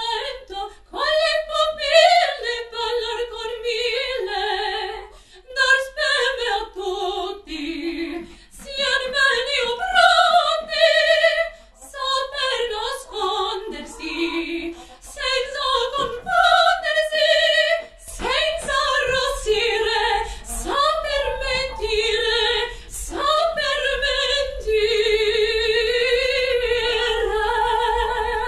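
A woman singing opera in short phrases that glide up and down with vibrato, with abrupt breaks between them.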